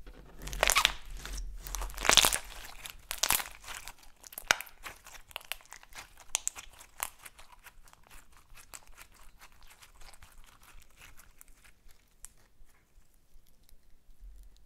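Hands kneading and squeezing a thick silver slime, which crackles and pops as trapped air is pressed out. The crackling is loudest and densest in the first few seconds, then thins to scattered small pops.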